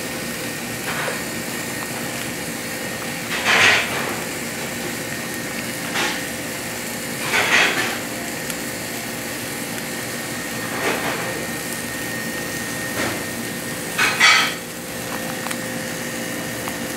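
A few short clatters of cookware and utensils, the loudest about three and a half, seven and a half and fourteen seconds in, over a steady kitchen hum.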